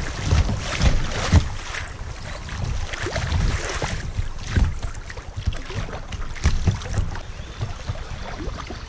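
Creek water rushing and splashing against a plastic kayak's bow as it runs through a riffle, with wind buffeting the microphone. The splashing eases about halfway through as the kayak reaches calmer water.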